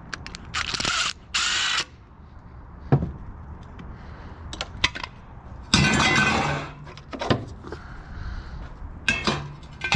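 Cordless drill-driver running in short bursts to back out screws from a vintage fan's steel casing. There are two quick bursts about a second in and another longer run near the middle, with clicks and clinks of metal parts between them.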